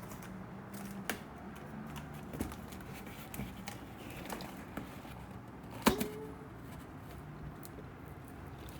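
Scattered light clicks and taps of something being handled, with one sharper knock about six seconds in, over a low steady hum.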